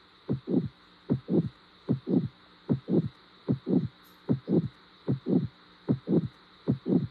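Recorded human heart sounds: a steady lub-dub, two short thuds per beat, at about 75 beats a minute, over a faint steady hum.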